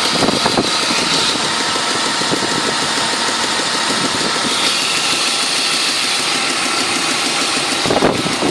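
BMW E39's M52B28 2.8-litre straight-six engine running, with a steady hiss and a fast ticking rattle throughout. The owner calls it an ugly sound, though the engine runs fine with no loss of power.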